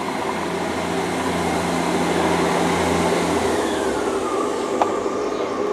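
A Class 158 diesel multiple unit pulling away from the platform under power. A steady engine drone drops away about three seconds in, and over the middle a whine falls slowly in pitch as the train moves off.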